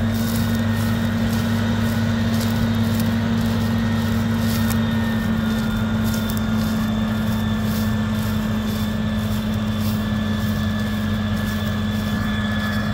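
John Deere 8640's six-cylinder turbocharged diesel engine running steadily under heavy draft load, pulling a seven-bottom moldboard plow. The drone holds one constant low pitch throughout.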